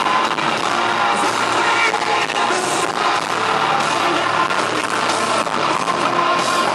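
Hard rock band playing live through a PA, loud and continuous with drums, guitars and singing, in a harsh, poor-quality audience recording.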